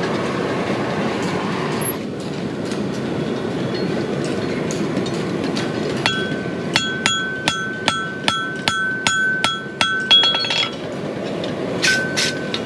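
Hammer striking hot steel on an anvil, about three ringing blows a second for some four seconds after a stretch without strikes, then two more blows near the end: a farrier punching nail holes in a horseshoe.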